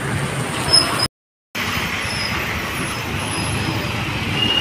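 Steady road traffic noise from passing vehicles. About a second in, the sound cuts out completely for roughly half a second, then the same traffic noise resumes.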